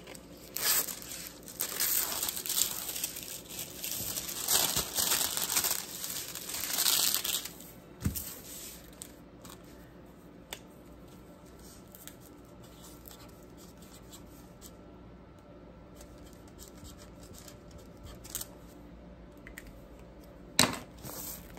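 Crinkling and rustling of a diamond painting canvas and its clear plastic cover film being handled, in uneven bursts for about the first seven seconds. After that it is mostly quiet, with a few faint clicks and one sharp tap near the end.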